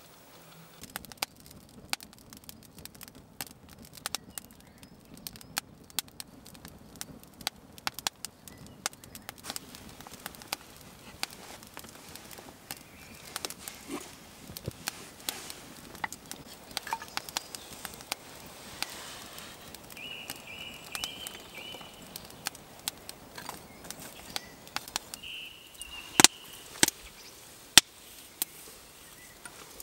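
Small wood fire crackling with scattered sharp pops, a few sharper and louder near the end, with a couple of brief high chirps in between.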